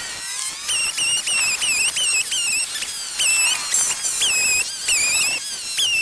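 Homelite XL chainsaw revving again and again while bucking logs. The time-lapse speed-up turns each rev into a quick high-pitched chirp, two or three a second.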